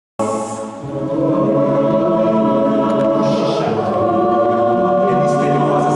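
Choral music: voices singing held chords that cut in suddenly out of silence just after the start, then carry on at a steady level.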